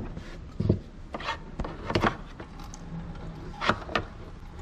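A handful of separate knocks and clatters, about five in four seconds, over a low steady background.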